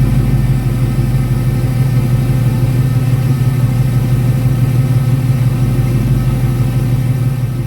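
LS-swapped V8 engine running through its exhaust at steady revs, a loud low rumble that holds one even pitch.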